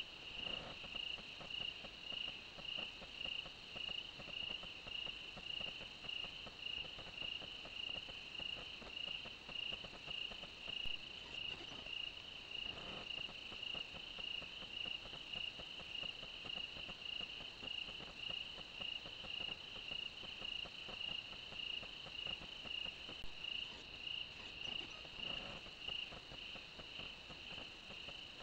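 Night insects: crickets chirping in an even rhythm of roughly two chirps a second, over a steady higher trill.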